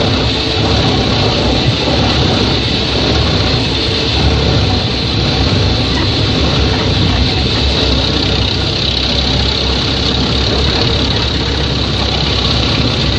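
MUS-MAX Terminator 10 wood chipper running loudly and steadily, a continuous machine din with a deep rumble and a bright hiss.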